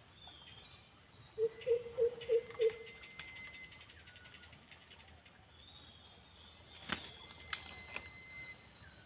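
A bird gives a quick series of five low hooting notes about a second and a half in, over faint high chirps and thin whistles of birds or insects. A sharp click comes near seven seconds.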